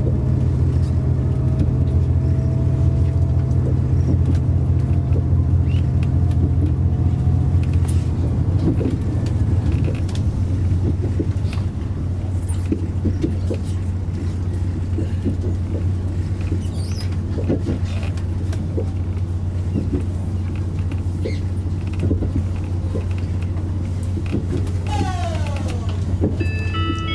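Diesel limited express train pulling away, its engine running with a faint rising whine for the first several seconds before easing back, then wheels clicking over rail joints and points. Near the end a falling run of chime notes starts.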